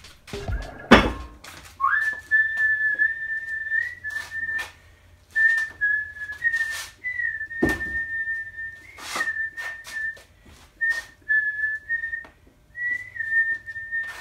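A high, steady whistling tone held on nearly one pitch, starting about two seconds in and broken by short gaps, over knocks and clatter of a wooden plank being handled on a workbench, with a louder thump about a second in and another near eight seconds.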